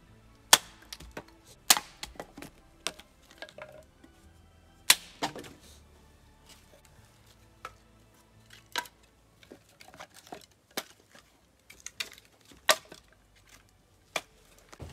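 Dry wood cracking and snapping: sharp, irregular cracks, about a dozen loud ones with quieter ticks between them.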